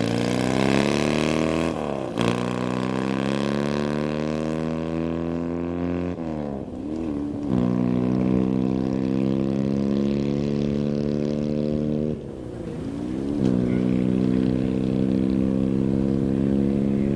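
Racing engine accelerating hard under full throttle, its note climbing and then dropping sharply at three upshifts, about 2, 6 and 12 seconds in.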